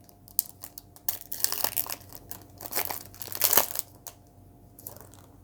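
Wrapper of a 2016 Topps Chrome baseball card pack crinkling and tearing as it is ripped open, in a run of crackles that are loudest a little past halfway through.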